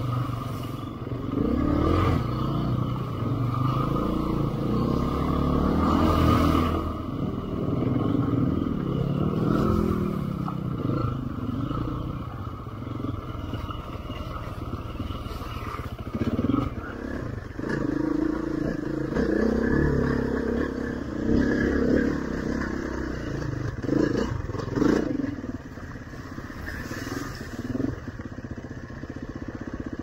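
Off-road motorcycle engine heard from on board as it is ridden over a rough track, its pitch rising and falling with the throttle, with intermittent clatter.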